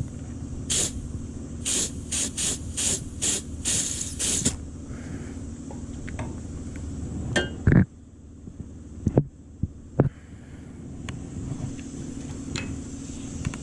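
Short, loud hissing sprays, about eight in the first four and a half seconds, as the clogged windshield washer line of a skid steer is blown or sprayed through. They are followed by a few sharp knocks, over a steady low hum.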